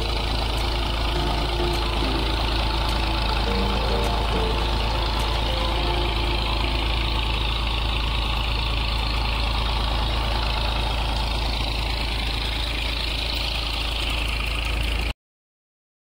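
Tractor engine running steadily under load, driving a tube-well pump through its drive shaft to draw irrigation water. It cuts off suddenly near the end.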